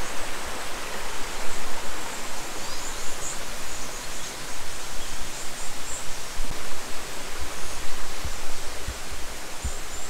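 Steady rushing of a mountain stream, with a few faint high chirps and some low bumps in the second half.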